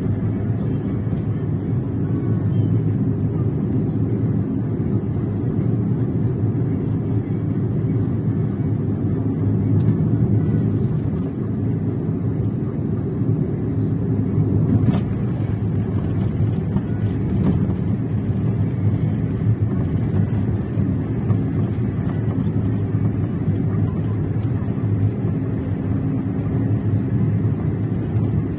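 Steady low rumble of engine and road noise heard from inside the passenger cabin of a moving vehicle.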